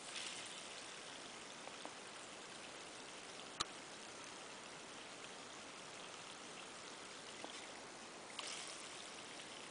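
Water running from a garden hose, a faint steady rush that swells briefly near the start and again near the end. A single sharp click about three and a half seconds in.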